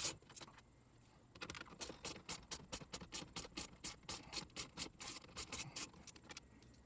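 Hand ratchet clicking in a quick, even run, about four or five clicks a second, as 7 mm bolts holding the dash trim are backed out.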